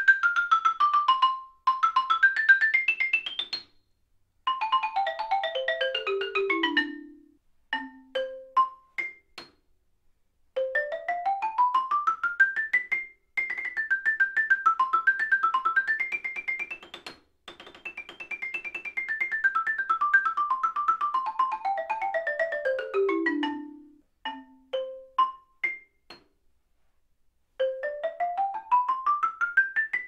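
Xylophone played with a series of Balter mallets in turn: first Medium Hard Vibe, then Medium Vibe, then 61F Mushroom. Each pair plays fast rising and falling scales, then a long descending run and a few single struck notes, with short pauses between passages. A new rising scale starts near the end.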